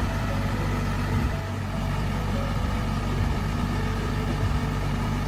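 Logging truck's engine running steadily, a low even drone that holds its pitch.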